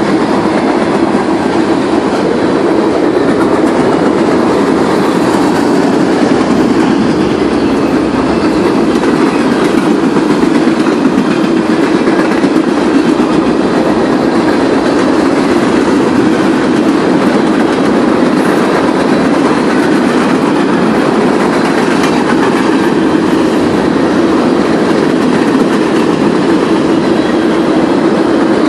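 Freight cars of a manifest train rolling past on steel rails: a loud, steady rumble of wheels on track that keeps on without a break.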